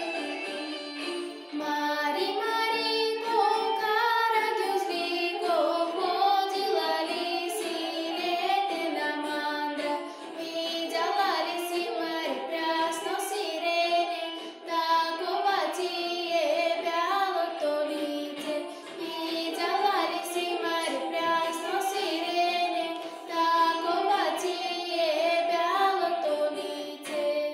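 A girl singing a folk song solo over instrumental accompaniment. Her voice comes in about a second and a half in and carries the melody in held, bending notes.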